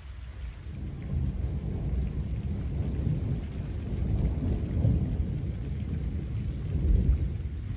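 Thunder rolling and rumbling for several seconds, building up about a second in and swelling again near the end, with rain falling throughout.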